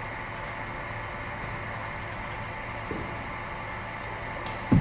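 Steady mechanical hum of a cricket bowling machine running between deliveries, with a faint click about three seconds in and a sharp knock right at the end.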